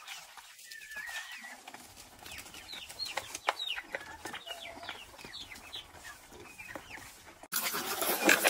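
A flock of chickens clucking and calling with short, falling notes while they feed, with light pecking clicks. About seven and a half seconds in it switches abruptly to a louder, rapid patter of chicken and duck beaks pecking unhusked rice off a plastic feeder tray.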